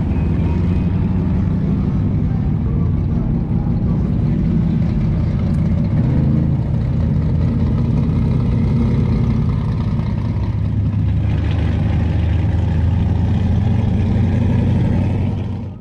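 Classic car engines running with a low, steady rumble as the cars drive slowly past one after another. The engine note changes about six seconds in and again about eleven seconds in, as a different car comes by.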